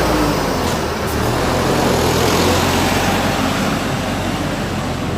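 Bus's Mercedes-Benz four-cylinder engine running steadily with traffic noise, the sound easing slightly toward the end.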